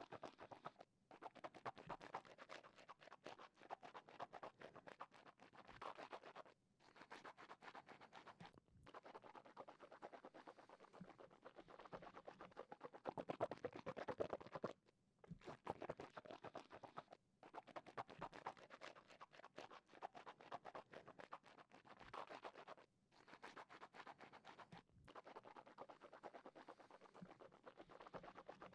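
Close-miked wet mouth sounds with water in the mouth: dense, quiet crackling and clicking in stretches of a few seconds, with short pauses between them.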